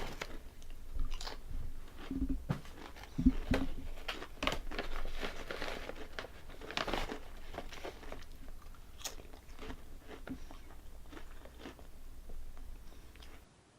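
Calbee Honey Butter potato chips being bitten and chewed close to the microphone: irregular crisp crunches, with a few duller thumps about two to four seconds in.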